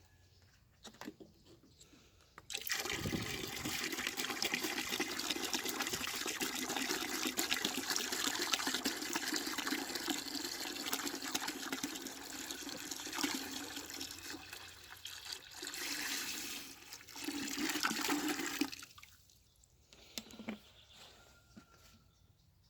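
Aerosol spray paint can hissing in a long continuous spray for about sixteen seconds, then in two short bursts, as a coat of paint goes onto a restored C-clamp.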